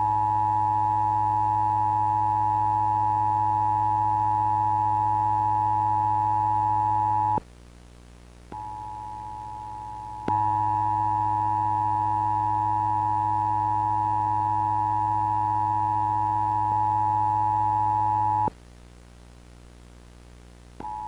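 Emergency-alert-style attention tone: a loud, steady, harsh electronic tone of two close pitches over a low buzz. It is held about seven seconds, stops, then returns for about eight seconds. In the breaks between, a quieter single steady tone sounds, coming back near the end.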